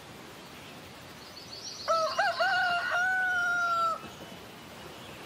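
A rooster crows once, about two seconds in. It gives a few short broken notes, then one long drawn-out note that ends about four seconds in.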